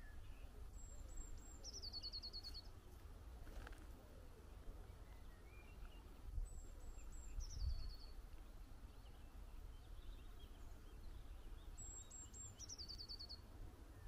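A small songbird sings the same short phrase three times, about five seconds apart. Each phrase is a few very high thin notes followed by a quick trill a little lower. A faint low rumble runs underneath.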